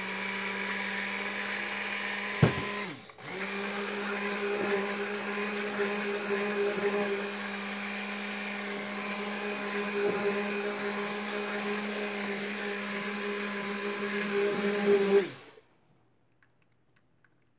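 Handheld stick blender running in a bucket of goat milk soap batter, a steady motor hum, mixing the batter. It cuts out briefly about three seconds in, runs again, then stops near the end.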